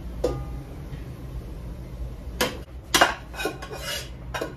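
A metal spoon clinks once against a stainless steel pressure cooker pot, then from about halfway on scrapes against it in several quick strokes as the mashed carrots are emptied into a pan.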